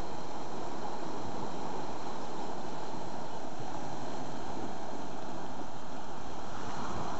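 Surf washing and breaking on a rocky shore, with wind buffeting the microphone: a steady rushing noise.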